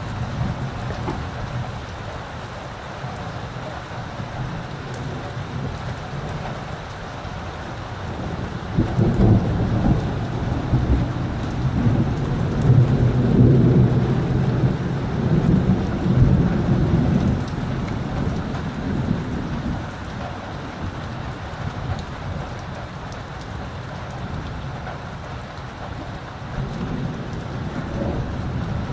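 Steady rain falling, with a long, low rolling rumble of thunder that builds from about nine seconds in, is loudest midway and fades away by about eighteen seconds.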